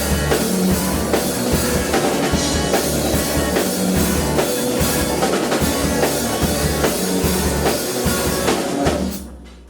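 Live band playing, with a drum kit and guitar over a steady beat and low bass; the song cuts off about nine seconds in.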